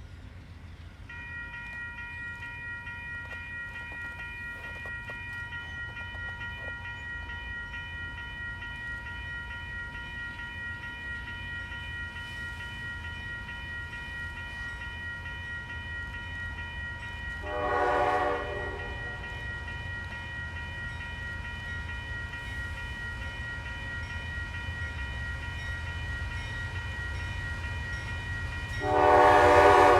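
Approaching diesel train with its low engine rumble building, and a steady high-pitched tone sounding from about a second in. The locomotive horn blows twice, a short blast past the middle and a longer, louder one near the end.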